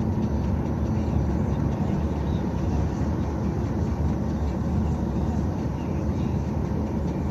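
Steady low rumble of a car's engine and tyres on the road, heard from inside the moving car, with no sudden events.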